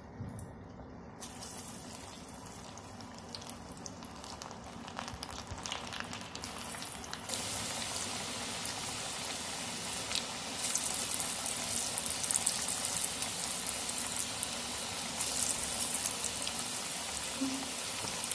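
Tapioca and chana dal vada batter deep-frying in hot oil: a crackling sizzle that grows louder and denser, stepping up about seven seconds in as more pieces go into the oil.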